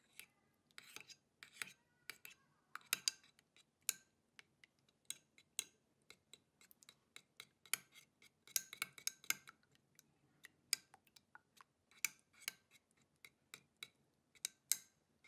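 Faint, irregular clicks and taps of a stirring tool against a container as glitter glue and clear glue are stirred together, with small clusters of quick taps now and then.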